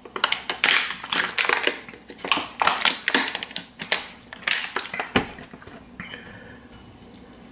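Thin plastic water bottle crinkling and crackling as it is squeezed in the hand, in quick irregular crackles for about five seconds that end with one sharp crack.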